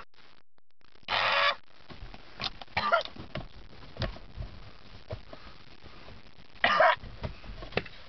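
A few short, muffled vocal noises from a person with a hood zipped over their head: a buzzy one about a second in, then shorter ones near the middle and near the end, with light knocks and rustles between.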